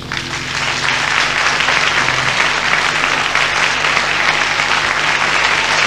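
Audience applauding as a folk song ends, with the last low string notes of the guitar and double bass dying away under the clapping for about the first two seconds.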